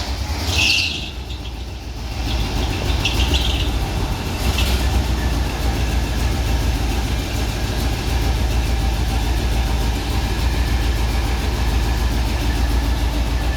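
ZIL truck engine idling steadily with an even low pulse, freshly started and running well.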